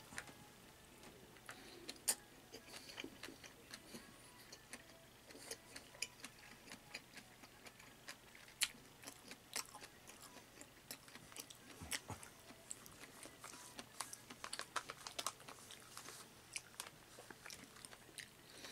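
A person eating Korean-style beetroot salad with chopsticks, close to the microphone: faint wet chewing and lip smacks broken by many small sharp clicks.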